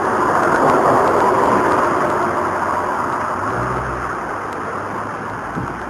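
Street traffic noise: a passing car's tyre and engine noise that swells about a second in and slowly fades away.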